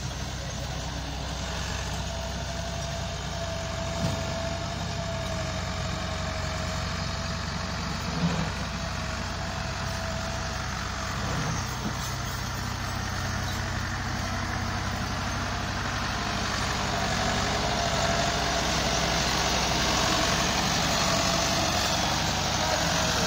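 Massey Ferguson 385 tractor's four-cylinder diesel engine running steadily while pulling a loaded trolley, with a couple of brief knocks and growing a little louder in the second half.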